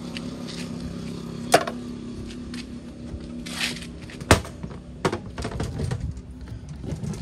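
Aluminium airline galley trolley being handled: two sharp metal clanks, about a second and a half in and again just past four seconds, then lighter knocks and rattles as the trolley is moved on its casters.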